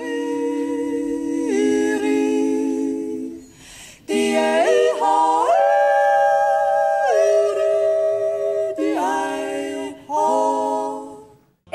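Background music of a wordless a cappella voice holding long notes that step from one pitch to another, sliding up into some of them. It breaks off briefly about four seconds in and fades out near the end.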